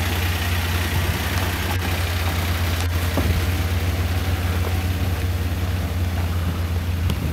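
A 4x4's engine idling steadily, a low, even hum.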